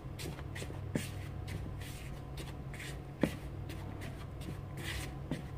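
Spatula stirring a crumbly flour, egg and oil mixture in a plastic bowl: repeated short scraping strokes, about three a second, with a couple of knocks against the bowl.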